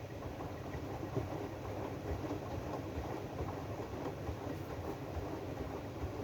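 AEG washing machine running its drum-clean cycle: a steady low rumble from the turning drum with irregular soft knocks.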